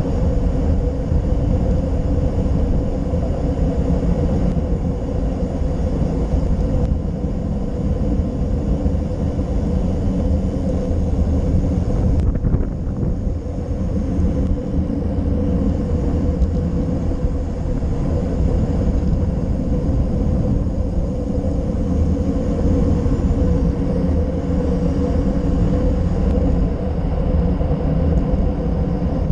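Wind rushing over a handlebar-mounted GoPro Session's microphone as a road bike descends a mountain road: a steady, loud low rumble with the hum of the bike rolling on asphalt.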